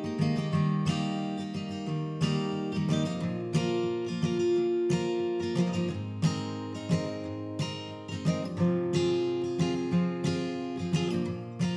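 Background music: solo acoustic guitar, plucked and strummed at an even pace.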